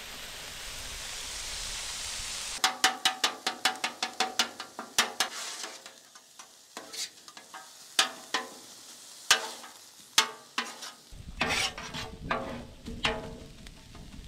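Pork sausage, bell peppers and onion sizzling on a hot Weber Slate griddle. About three seconds in, metal spatulas start chopping and scraping on the griddle top in a fast run of sharp taps, then scattered taps, with another burst of taps near the end.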